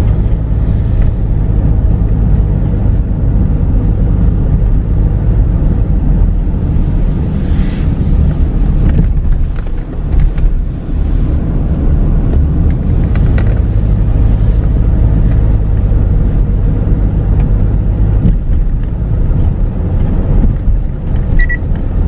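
Steady low rumble of a passenger car driving on the road, engine and tyre noise heard from inside the cabin.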